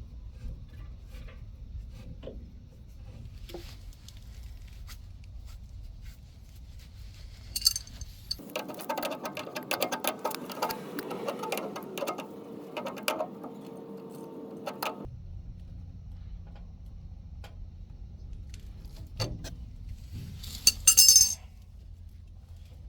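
Intermittent metal clinking and scraping of hand tools (wrench and groove-joint pliers) against threaded gas pipe fittings, over a low steady hum. Denser rattling in the middle, and a short loud burst of clinks near the end.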